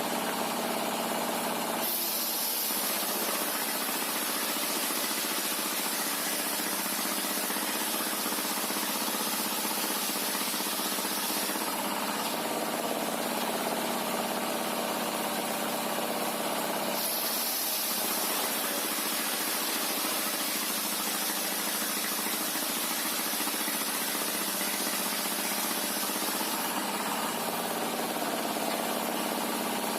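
Sawmill machinery running steadily: a constant engine hum under a loud hiss. The hiss switches on abruptly about two seconds in, drops out after about ten seconds, and returns for another ten-second stretch.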